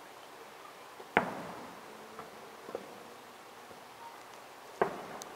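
Distant fireworks shells bursting: two sharp bangs about three and a half seconds apart, each trailing off in a rolling echo, with a fainter pop between them.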